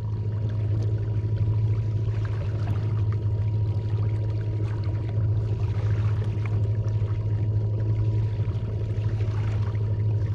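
Water rushing and splashing against a kayak's hull over a steady low hum, both starting suddenly at the outset and holding steady.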